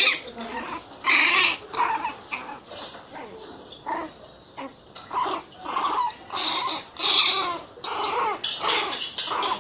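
Pinscher puppies barking and yipping: about a dozen short, high barks at irregular intervals.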